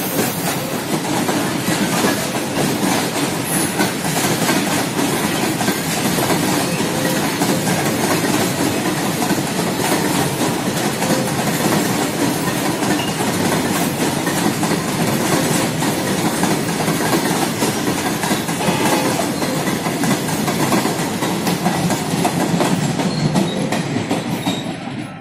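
Freight train of covered goods wagons passing through a station without stopping: a loud, steady rumble and clatter of wagon wheels on the rails, dying down near the end.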